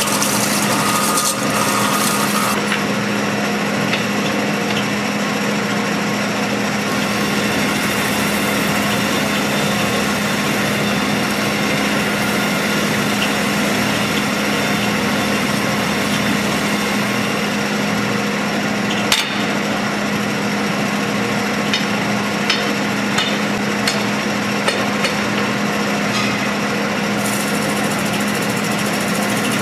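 Metal spinning lathe running with a steady hum while a hand-levered spinning bar rubs and presses against the rotating sheet-metal dome, giving a continuous scraping noise. A sharp knock comes about two-thirds of the way through, followed by a few small ticks.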